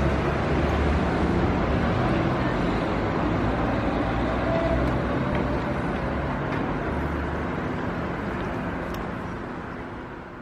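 City street traffic with a bus engine running close by, a steady low rumble. The sound slowly fades out near the end.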